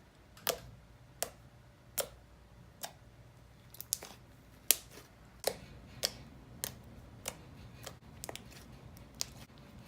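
Glossy, clicky slime being squeezed and pressed by hand, giving a string of sharp clicks and pops about once a second.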